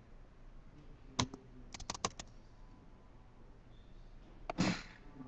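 A few sharp clicks, like keys or buttons being pressed: one about a second in, a quick run of four about two seconds in, then another click and a short rustling burst near the end.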